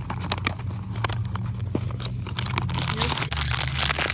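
Cardboard blind-box packaging being handled and opened with small clicks and scrapes. From about two and a half seconds in, a foil blind bag crinkles steadily as it is pulled open. A steady low hum runs underneath.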